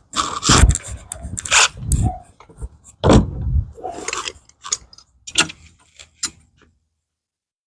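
Screen door handle hardware being refitted: irregular metallic clinks, rattles and knocks of the handle and screws against the door frame, stopping a little over six seconds in.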